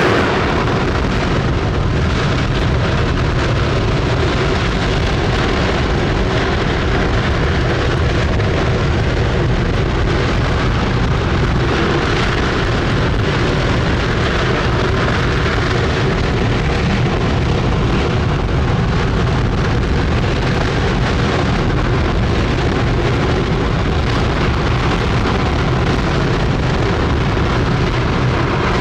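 Space Shuttle Main Engine (RS-25, liquid-hydrogen/liquid-oxygen rocket engine) firing on a static test stand, heard from across the field as a loud, steady, deep rushing noise that holds without a break.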